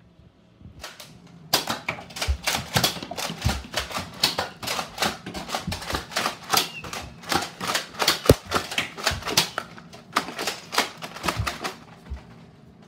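Toy foam-dart blasters being fired in a rapid, irregular run of sharp clicks and snaps, about four or five a second, with one sharper crack about two-thirds of the way through.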